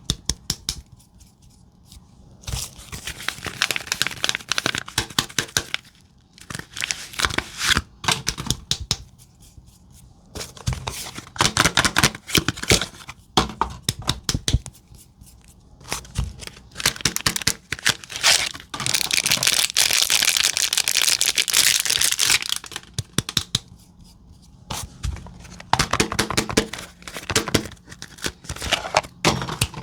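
Soap bars being unwrapped by hand. Their wrappers crinkle and tear in bursts with short pauses between, and there is one longer stretch of tearing a little past the middle.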